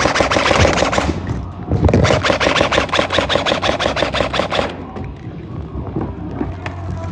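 Airsoft gun firing on full auto: a rapid, evenly spaced string of shots lasting nearly three seconds, after a shorter noisy burst at the very start.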